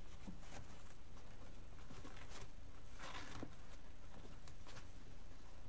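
Faint rustling and crinkling of wired ribbon as the loops of a bow are pinched and arranged by hand, with a few light ticks and a somewhat fuller rustle about three seconds in.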